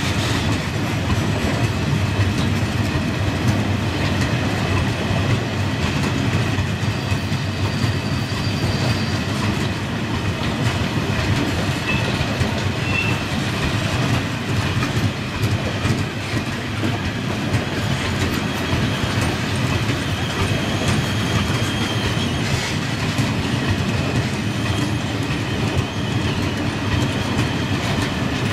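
Long train of loaded open freight wagons carrying coal briquettes rolling past at a steady speed: a continuous rumble of wheels on rail with clickety-clack over the rail joints and a few faint high wheel squeals.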